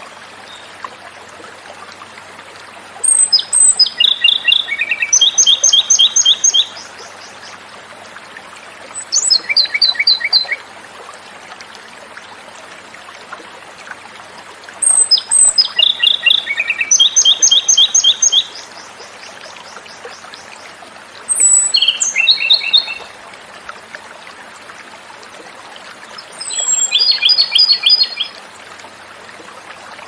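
Japanese robin (komadori) singing, five song phrases at intervals of about six seconds. Each phrase is a high opening note followed by a fast trill of repeated notes lasting about three seconds, over a steady faint hiss.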